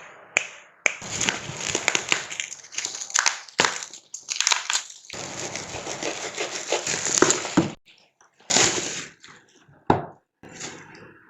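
Keyboard packaging crinkling and rustling in irregular bursts as it is handled and opened, with a pause after about eight seconds and a few shorter rustles after.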